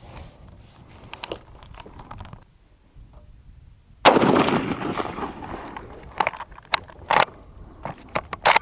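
A single shot from a Springfield M1903 rifle in .30-06 about four seconds in, very loud and sudden, fading over about a second. It is followed by a few sharp metallic clicks as the bolt is worked to eject the spent case and chamber the next round.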